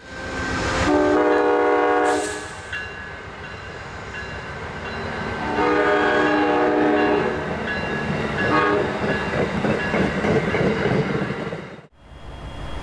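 Diesel locomotive air horn sounding two long blasts and a short one, over the rumble and rattle of a passing train.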